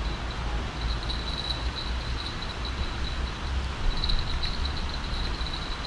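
Steady outdoor ambience: a low rumble of distant traffic under a high, unevenly pulsing insect trill.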